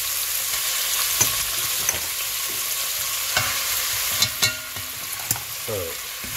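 Flour-coated chicken thighs and bacon sizzling steadily in hot olive oil in an enamelled casserole pot, browning at medium-high heat. A few sharp clicks and knocks come as the pieces and the wooden spoon are moved in the pot, with a short scrape near the end.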